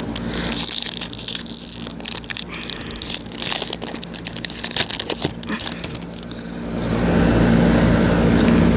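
Foil wrapper of a baseball card pack being torn open and crinkled in the hands, a dense run of crackles and rustles. About seven seconds in, a steady low engine hum comes up and carries on.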